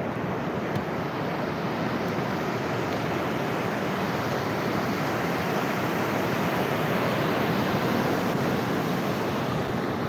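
Sea surf washing onto a sandy beach: a steady, unbroken rush of breaking waves.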